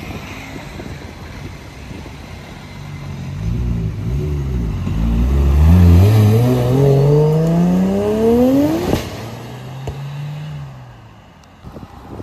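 Nissan Skyline R34's straight-six pulling away hard, its engine note climbing steeply for about four seconds. The note then breaks off sharply at a gear change and fades as the car drives off.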